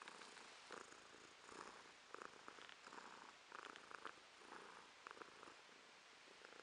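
Tabby cat purring softly, close up, the purr swelling and fading in a steady rhythm with its breathing.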